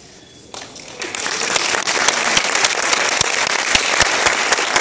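Audience applauding, swelling about a second in, with sharp claps close at hand standing out over the rest.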